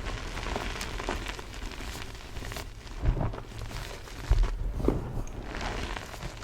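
Crusty, flakey blocks of BSN gym chalk being crushed: continuous crunching and crackling, with heavier crunches about three, four and five seconds in.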